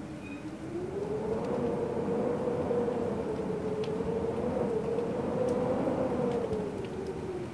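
Wind whistling in one wavering tone over a steady rush. The tone dips low at the start, rises and holds with slow wobbles, then sinks again near the end. A few faint ticks of light rain sound through it.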